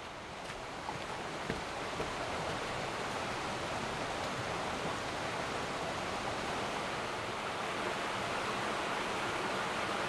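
Steady rush of a fast-flowing forest creek, growing louder over the first couple of seconds. A few footsteps on a dirt trail are heard near the start.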